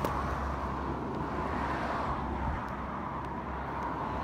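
A steady engine drone from a distance, with a brief knock right at the start.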